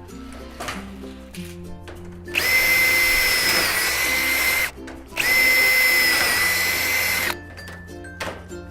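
Power drill running in two bursts of about two seconds each, a steady high whine that dips slightly in pitch under load, as hinge fixings are driven through the shed door's steel hinges, with background music underneath.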